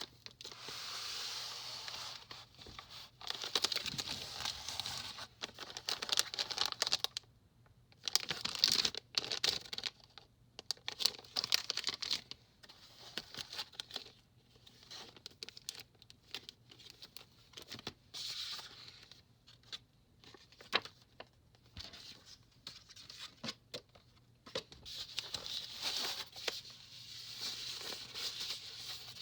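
Packaging being handled while unboxing a keyboard kit: plastic and paper crinkling and tearing in irregular bursts of a second or two, with short pauses and occasional small clicks and knocks.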